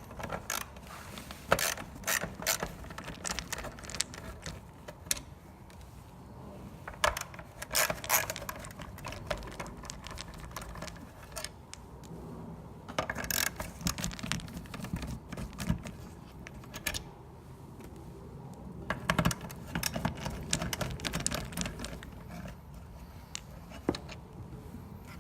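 A 1/4-inch nut driver backing out screws from a 1975 Cadillac instrument cluster: four bursts of clicking, rattling and scraping, a few seconds apart.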